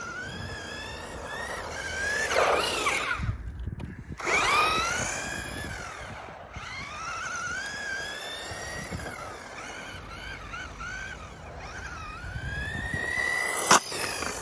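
Electric motor whine of a Kyosho Turbo Optima RC buggy, its brushed Tamiya Super Stock RZ motor rising and falling in pitch again and again with the throttle as the buggy drives. A single sharp knock near the end.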